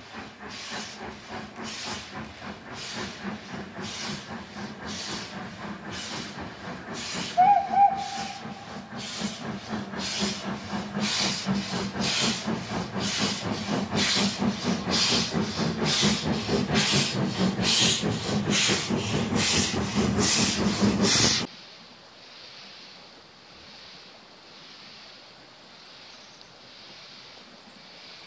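Steam locomotive of the Midland 4F and Ivatt Class 2MT pairing approaching under power: steady chuffing exhaust beats, about one and a half a second, growing louder as it nears, with one short whistle blast about seven seconds in. The sound cuts off about 21 seconds in, leaving only a faint steady hiss.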